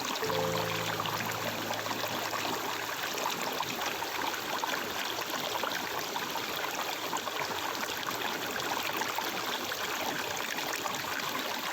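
Water of a stream running and trickling steadily, with a faint low steady tone in the first few seconds.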